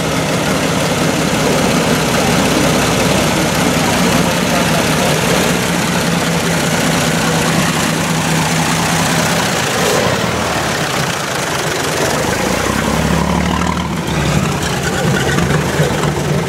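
Vintage car engine idling steadily, with a deeper engine note joining about thirteen seconds in.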